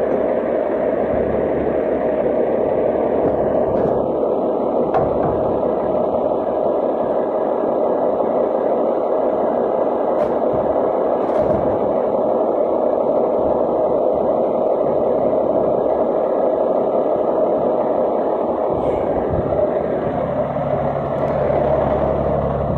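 Fire engine's diesel engine idling, a steady drone heard up close to the truck.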